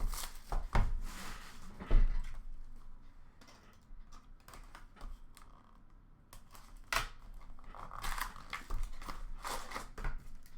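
Packaging of a hockey card box and its packs being handled and torn open, with crinkling and tearing of the wrapper and a knock about two seconds in.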